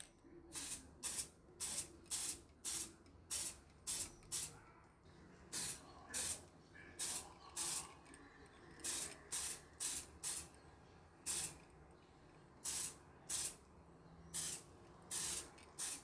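Aerosol spray can putting a primer coat on a saw handle, hissing in about twenty short bursts with brief gaps between them.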